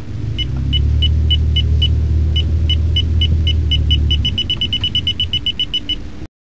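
Countdown intro sound effect: short high beeps ticking about three times a second, then speeding up to a rapid run in the last two seconds, over a deep rumble that swells and then fades. Everything cuts off suddenly near the end.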